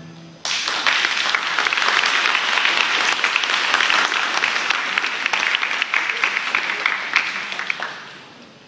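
Audience applauding. It starts suddenly about half a second in, holds steady, and dies away near the end.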